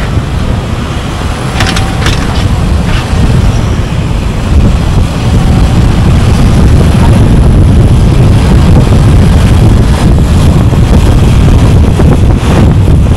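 Car driving at road speed: a steady low rumble of road and wind noise, growing louder about four seconds in, with a few faint clicks.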